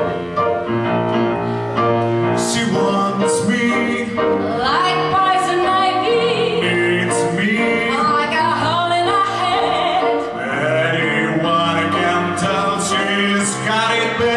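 A man and a woman singing a show-tune duet into microphones, backed by live piano.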